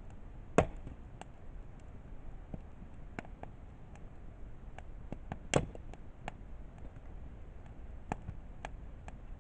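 Wood campfire crackling, with irregular small pops and two louder snaps, one about half a second in and one just past the middle.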